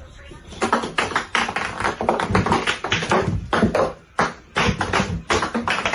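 A fast, irregular run of sharp taps or clicks, several a second, with a brief pause a little past the middle.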